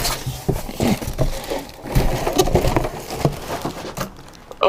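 Packaging being handled as a new spindle sander is taken out of its box: rustling and scraping with a run of irregular light knocks and clicks.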